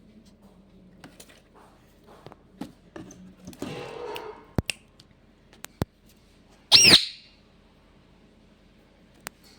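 Pet parrot giving one short, loud squawk about seven seconds in, its pitch sweeping up and back down. Before it come a brief rustle and a few sharp clicks.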